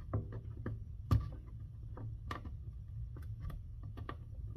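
Skateboard griptape being peeled off the deck by hand, giving irregular small clicks and crackles as the adhesive lets go, over a steady low hum.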